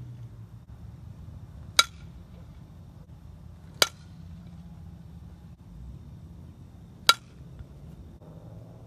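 A fastpitch softball bat hitting pitched softballs three times, each contact a single sharp crack with a brief ring, spaced a few seconds apart.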